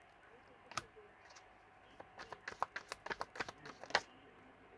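Tarot cards being handled: a scatter of light clicks and taps, one about a second in, then a quick run of them in the middle seconds ending in a louder tap.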